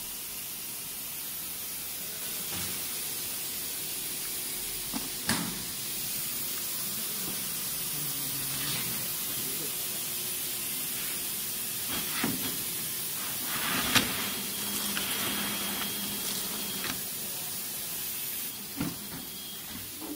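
Steady hiss of a running CNC router line for furniture panels, broken by a few sharp knocks and a couple of brief low motor hums.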